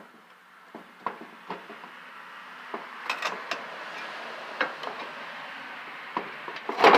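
Metal clinks and knocks from hand work on a large electric motor being taken apart for its copper, with a scraping noise that builds and a loud clatter near the end.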